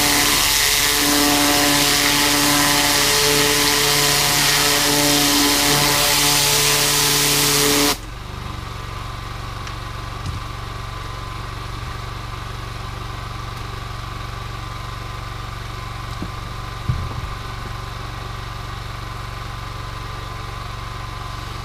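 A 4,000 PSI pressure washer blasting water through a zero-degree tip onto a deer hide: a loud spray hiss over the running engine. About eight seconds in the spray cuts off suddenly, leaving the engine running steadily.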